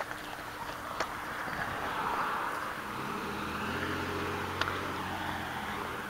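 A car driving past on the street: its tyre noise swells over the first couple of seconds, joined by a low engine hum from about three seconds in that fades out near the end. Two faint clicks, about a second in and again near five seconds.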